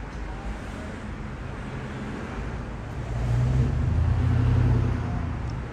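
Street traffic rumble, with a motor vehicle passing. Its low engine hum swells about three seconds in and fades about two seconds later.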